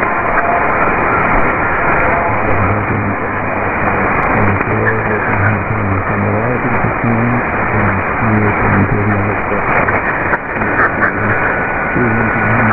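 Shortwave AM broadcast on 4760 kHz, the weak signal of ELWA: a faint voice from about two seconds in, buried under heavy hiss and static, with the sound cut off sharply above the narrow receiver bandwidth. A thin steady whistle comes in near the end.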